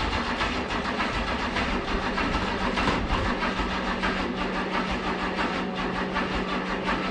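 Chevy 350 V8 being cranked over by its starter in an even, repeating rhythm without catching, after a winter sitting.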